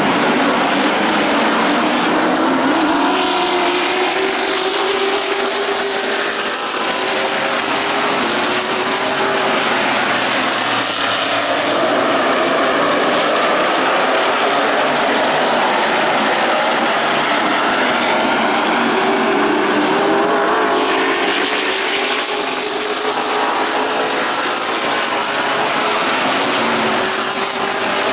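Several stock car engines running hard around an oval. Their pitch rises again and again as the cars accelerate out of the turns, and the sound swells twice as the pack passes.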